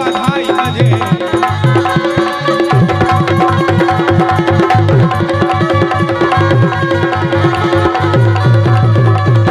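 Instrumental break in a Bundeli rai folk song: a fast hand-drum rhythm under held melodic notes. The drumming grows denser about three seconds in.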